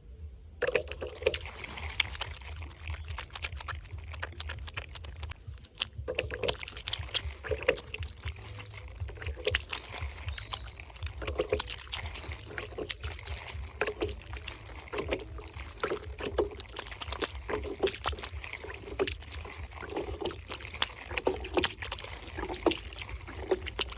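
Water being poured and sloshed, with frequent small clicks and knocks from handling.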